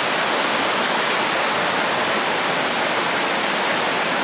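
Mountain stream rushing over its rocks: a loud, steady wash of moving water.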